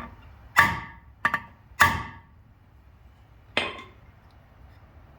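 Hammer striking steel: four sharp metal-on-metal blows, each ringing briefly, the third coming quickly after the second and the last after a pause of nearly two seconds. The hammering is part of the work to free a broken bellhousing bolt seized in an engine block.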